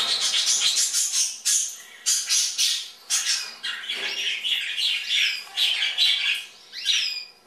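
Young hand-fed Western Rosellas calling: a quick run of harsh, raspy squawks, several a second, with a few rising-and-falling whistled notes near the end.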